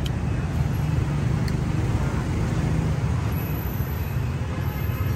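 Steady street traffic noise, a low rumble of passing cars and motorbikes, with two faint clicks.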